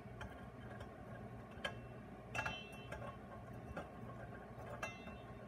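Metal tongs turning hookah coal cubes in a coal burner: a few scattered light clicks and taps, two of them leaving a short metallic ring, over a low steady hum.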